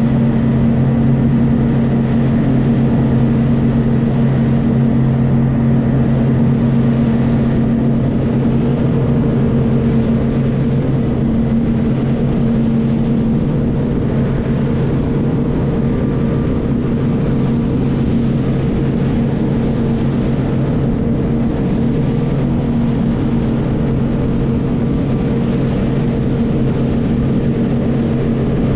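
Motorboat engines running steadily at speed, a constant low drone over the rush of water from the wake.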